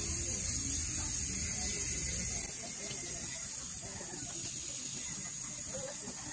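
Steady background hiss with a low hum underneath that stops about two and a half seconds in.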